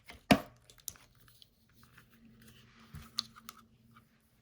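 Clicks and light knocks from handling small plastic parts: one sharp click about a third of a second in, then a few softer clicks around three seconds in.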